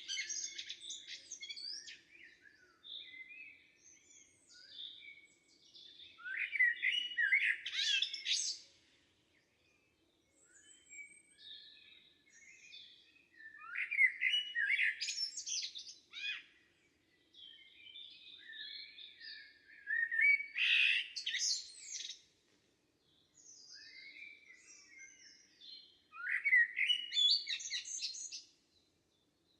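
Songbirds singing in a forest: a loud song phrase of two to three seconds comes about every six seconds, with softer chirps in between.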